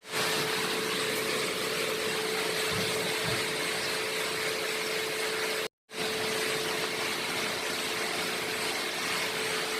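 A motor-driven machine running steadily: a constant hum under a loud, even hiss. It cuts out completely for a moment a little past halfway, then carries on the same.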